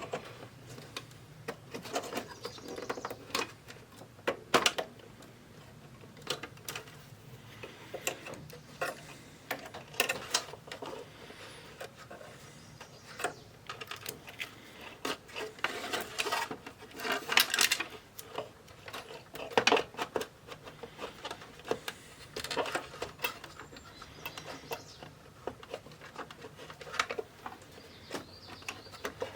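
Irregular small clicks, taps and scrapes of a screwdriver working on a boombox's plastic case as its screws are taken out, over a faint steady low hum.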